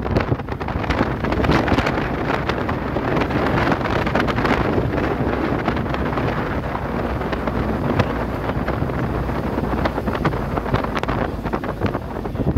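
Wind buffeting the microphone of a moving car, a steady rushing with irregular gusty thumps, over the low rumble of the car on the road.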